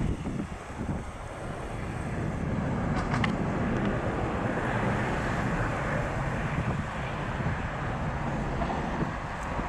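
Jet engine noise from an Airbus A310 airliner climbing away overhead: a steady low rumble with a hiss above it, swelling about two seconds in, with some wind on the microphone.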